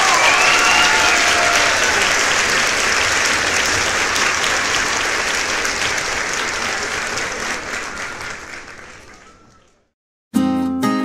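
Crowd applause with a little cheering at the start, fading out towards the end. After a short silence, strummed acoustic guitar music begins.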